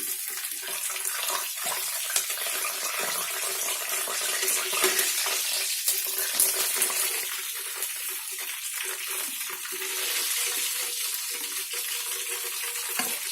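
Fried chicken pieces sizzling in hot oil in the pan, the gas just switched off, with scattered light clicks as the pieces are lifted out.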